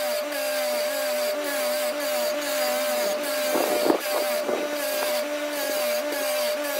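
Bench grinder running with a cast aluminium bronze plaque pressed against its spinning wheel. It gives a steady whine, and its lower tone wavers as the metal is worked against the wheel. A short knock comes about four seconds in.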